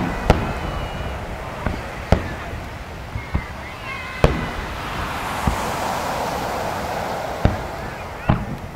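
Large aerial firework shells bursting in a rapid barrage, about eight sharp bangs at uneven intervals.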